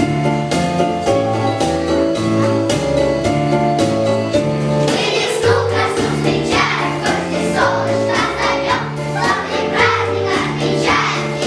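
Music with a steady beat and sustained chords; a choir of children's voices comes in singing about five seconds in.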